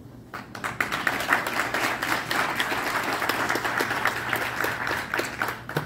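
Audience applauding, a dense patter of many hands clapping that starts a moment in and stops near the end.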